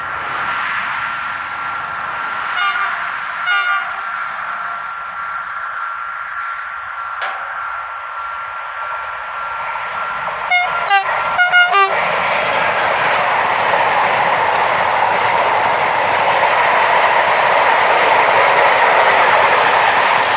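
RENFE class 253 (Bombardier Traxx) electric locomotive approaching with a steady whine, sounding short horn blasts twice a few seconds in and a quick run of blasts around ten to twelve seconds in. Its freight wagons then roll past, a loud, even noise of wheels on rail.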